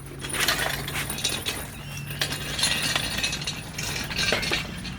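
Metal clinks, scrapes and short ratchet-like clicks of hand tools and bolts being worked on an engine. A steady low hum runs underneath.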